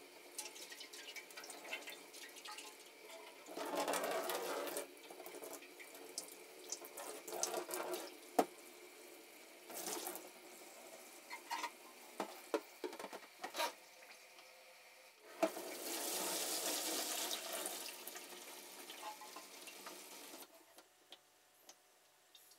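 Rinse water sloshing inside a motorcycle fuel tank and pouring out of it into a utility sink as the tank is tipped and drained, with a short gush about four seconds in and a longer pour about two-thirds of the way through. Scattered knocks from the tank being handled against the sink come between the pours.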